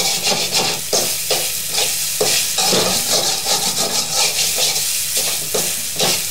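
Spatula scraping and chopping through eggs frying in oil in a metal karahi, in quick irregular strokes over a steady sizzle, breaking the eggs into small pieces.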